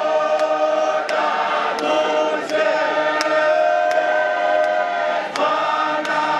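Church congregation singing a hymn together in harmony, many voices holding long notes. A sharp tick about every three-quarters of a second keeps the beat.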